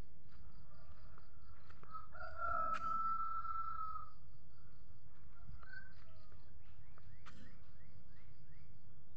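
A rooster crows once, a single drawn-out call of about two seconds beginning about two seconds in, over a steady pulsing high insect chirr. A run of short rising bird chirps follows near the end.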